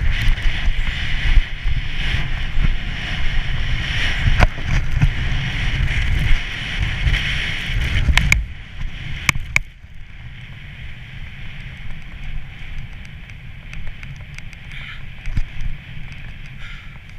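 Snowboard sliding and scraping over choppy snow, with wind buffeting the microphone; about eight seconds in, after a few sharp clicks, it drops to a quieter, steady hiss of the board gliding on smoother snow.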